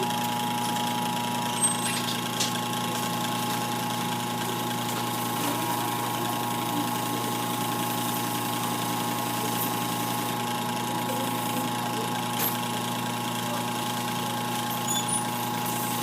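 Hanabishi Windmill 18SF electric fan running, its motor giving a steady hum with a few faint ticks.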